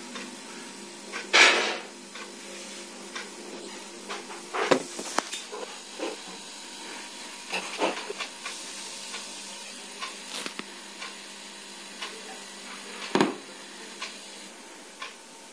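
Steady hiss with scattered light clicks and knocks of handling, and a heavier knock near the end.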